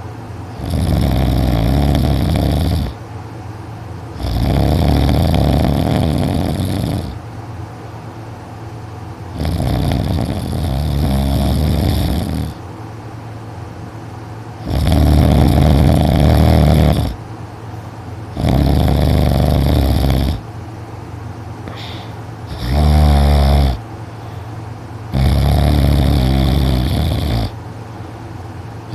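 A teenager's really loud, heavy snoring during sleep: seven snores, each about two to three seconds long, coming every four seconds or so, with quieter stretches between. One near the end is shorter and fluttering.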